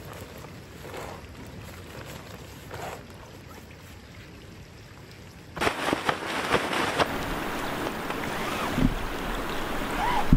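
Soft rustling of a nylon down quilt being rolled up. About five and a half seconds in it turns louder: a tent fly is shaken out with a handful of quick flapping snaps, followed by steady wind noise.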